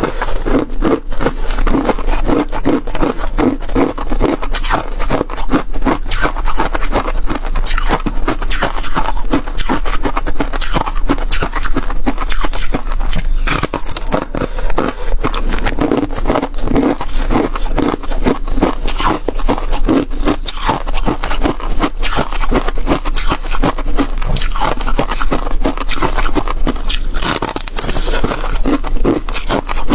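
Close-miked crunching and scraping of flaky frozen ice being bitten and chewed: a dense, continuous run of rapid crackling crunches.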